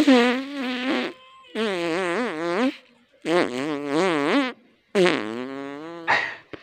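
Four long, wobbling fart sounds, each lasting about a second, with short gaps between them.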